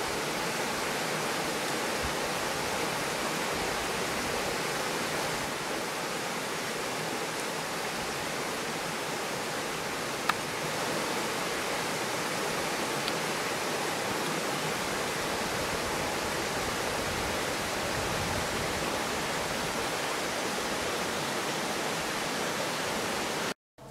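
Steady rush of a shallow, rocky river running over stones and small cascades, with one sharp click about ten seconds in.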